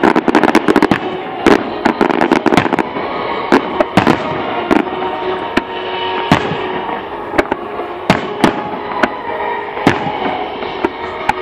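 Aerial fireworks shells bursting: a quick cluster of bangs in the first second, then single bangs scattered every half second or so.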